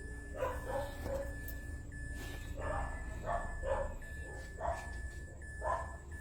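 A dog barking, about eight short barks in irregular groups.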